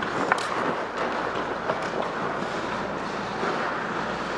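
Steady scraping and rushing noise of skating on ice: skate blades on the ice, with air rushing over a helmet-mounted camera's microphone. One sharp click comes shortly after the start.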